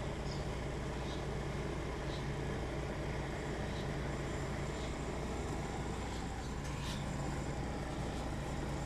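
Volvo FE 300 rear-loader garbage truck's diesel engine idling steadily, a low even hum.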